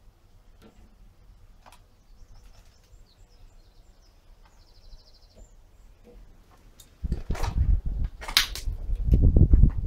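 Faint bird chirps over a quiet background, then from about seven seconds a loud, uneven rumble of wind buffeting the microphone, with a sharp rustle near the end.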